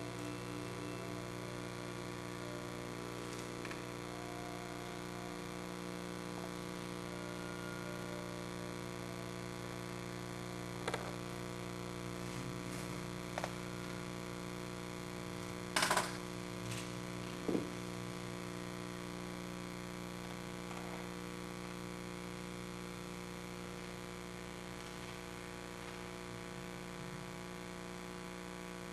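Steady electrical mains hum, with a few soft knocks and clicks; the loudest comes about halfway through.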